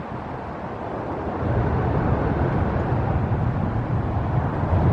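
Road traffic on a busy highway bridge, a steady rumble that grows louder about a second and a half in.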